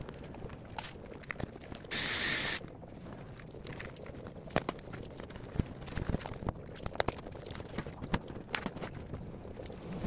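Scattered knocks and clicks of a large cardboard box being carried and set down on the floor, with one loud hiss lasting about half a second about two seconds in.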